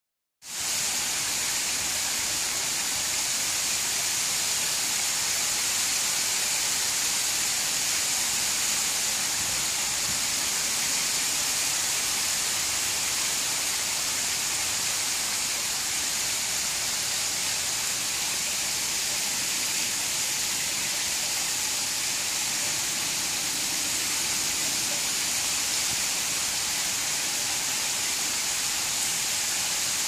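Water falling down a stepped stone cascade wall into a swimming pool: a steady, unbroken hiss of many thin sheets of water splashing.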